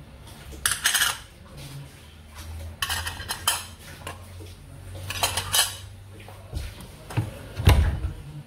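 Metal lids lifted off aluminium moi moi cups standing on a plate, clattering and clinking in three short bursts about two seconds apart. A low thump comes near the end.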